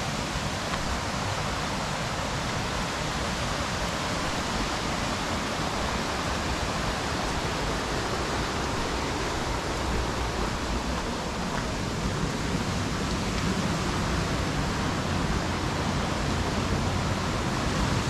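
Steady rushing roar of the Hardraw Force waterfall, a continuous noise of falling water that grows a little louder in the last few seconds.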